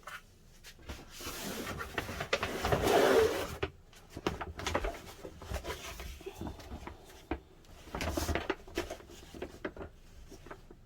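Household objects being handled: rubbing and scraping with light knocks and clicks, loudest about two to three seconds in and again around eight seconds in.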